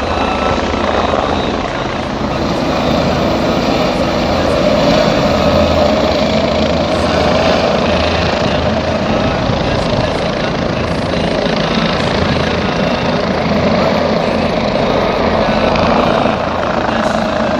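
Helicopter running nearby, a loud steady engine-and-rotor drone that swells a little and eases.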